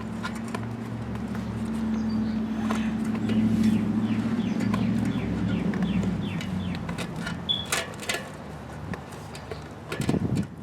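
A steady low motor hum swells over a few seconds and then fades, with short high chirps of birds over it.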